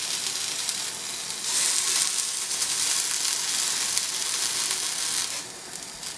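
Cut faces of halved onions sizzling on a hot, dry non-stick frying pan as they char. The hiss grows louder about a second and a half in and drops away near the end.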